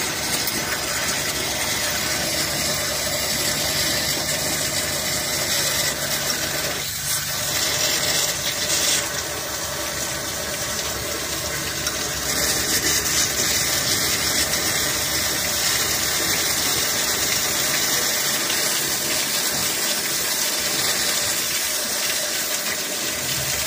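Water being pumped into a mud-packed truck frame rail, with muddy water gushing out of the frame and splashing onto the ground below as a steady rushing hiss.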